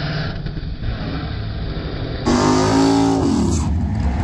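Drag race car engines running at the starting line. About two seconds in, a louder engine comes in and its revs fall away over about a second.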